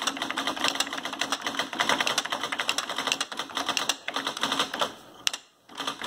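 Fast typing on a 1985 Xerox 6010 Memorywriter electronic typewriter: a rapid run of light clicks from its rubber-dome keys and quiet daisy-wheel print mechanism, pausing briefly near the end.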